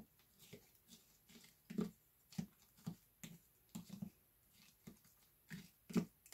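Soft eating sounds: a spoon clicking and scraping in a small plastic dessert tub, along with mouth noises of eating. These come as irregular short clicks, about two a second.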